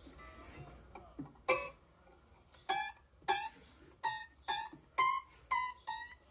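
Scroll saw blade being plucked like a string, about eight short twangs, while the blade tension is tightened. Each twang rings a little higher than the last, the usual way of judging whether the blade is tensioned enough.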